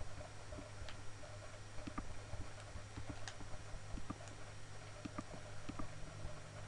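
Computer mouse buttons clicking at irregular intervals, a few sharp clicks among many faint ones, over a steady low hum.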